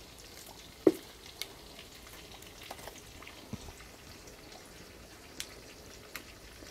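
Chicken kebab pieces deep-frying in hot sunflower oil in a kadai: a steady faint sizzle with scattered small crackles and pops. A single loud sharp crack comes about a second in.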